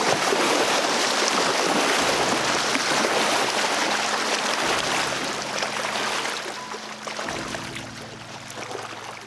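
Steady rushing hiss of moving river water, fading out over the second half as background music with steady sustained tones fades in.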